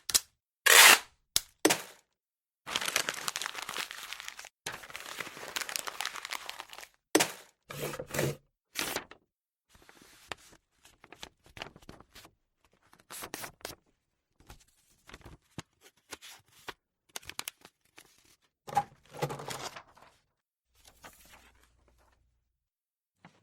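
Paper handled at a desk: a sheet torn and crumpled for several seconds, between sharp snaps and clicks, then fainter scattered rustles and clicks.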